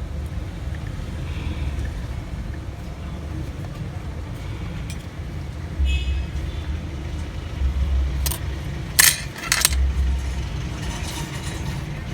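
Steady low rumble with several sharp clicks, as of small hard objects knocking, about eight to ten seconds in.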